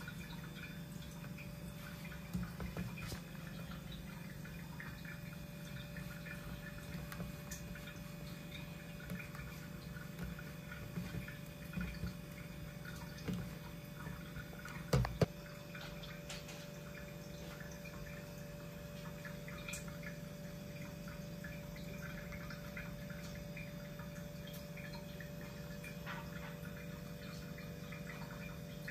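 Metal spoon stirring runny instant porridge in a plastic pot: scattered small clinks, scrapes and wet sounds, with two sharp knocks about halfway through as the loudest sounds. A steady low hum runs underneath.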